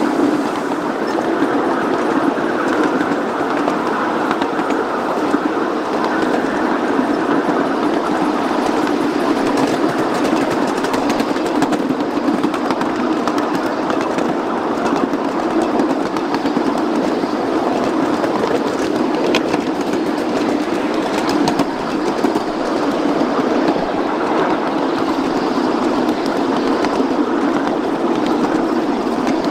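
Ride-on miniature railway train running along the track: a steady rumble of small steel wheels on the rails, with fine clicks throughout.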